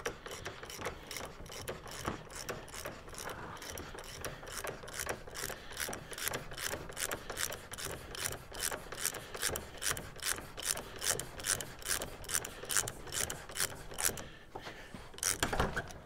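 Ratchet wrench clicking in a steady run of about three clicks a second as it backs a fork's valve-assembly nut out of the tube. The clicking stops near the end.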